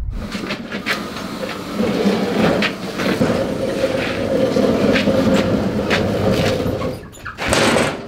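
Old Murray kid's go-kart being pulled across a concrete shop floor: its small wheels rumble and scrape, with rattles and clicks from the frame. A short, louder scraping rush near the end.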